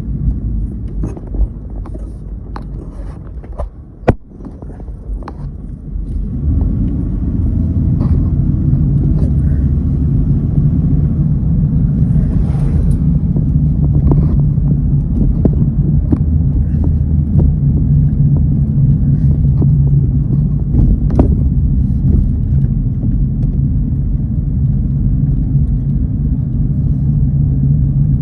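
Vehicle on the road: a loud steady rumble of engine and road noise with a steady low drone that sets in about six seconds in, after a few clicks and one sharp knock about four seconds in.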